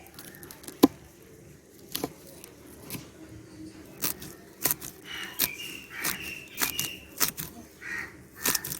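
Irregular sharp clicks and knocks, about a dozen spread through, the loudest a little under a second in, with a few short high chirps in the middle.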